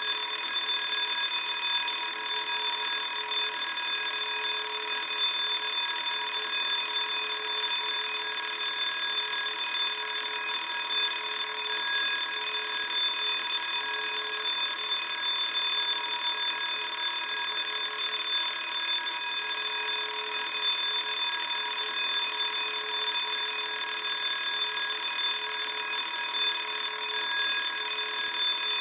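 Classic electric school bell ringing steadily and without a break, a continuous high metallic ring.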